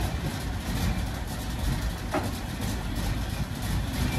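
A 1941 Ford Model 11Y pickup's 3500cc engine running at a steady idle.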